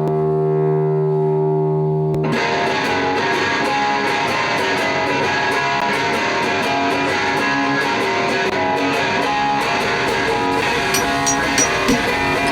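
Rock music with distorted electric guitar. A held, droning chord opens it, and the full band comes in about two seconds in with a steady beat.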